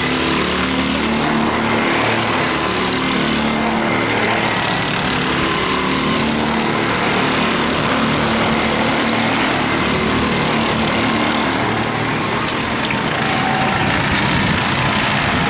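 Several rental go-kart engines running as the karts race around the track, their pitch stepping up and down as the drivers accelerate and lift.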